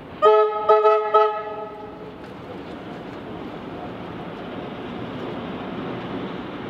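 Tait electric train sounding three short toots on its horn, each a multi-note chord, about half a second apart. The train's running noise then grows steadily louder as it approaches.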